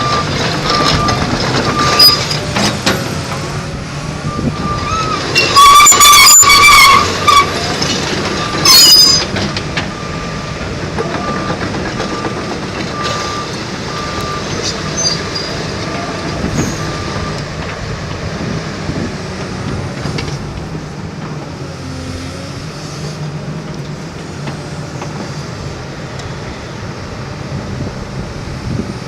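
Komatsu PC228USLC-3 hydraulic excavator running, with its travel alarm beeping in a steady rhythm until about halfway through. Loud, high-pitched metallic squeals come twice, about 6 and 9 seconds in.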